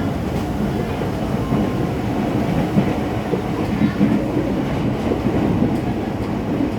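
Ex-Tokyo Metro 6000 series electric train heard from inside the car while running: a steady rumble of wheels on rail with a few louder knocks of rail joints.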